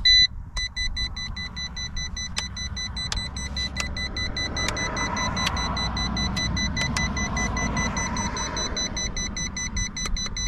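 Electronic warning beeper of a Yu Xiang F11 Apache RC helicopter set: one loud short beep, then a steady high-pitched tone that keeps sounding, which the owner puts down to a transmitter lever left up.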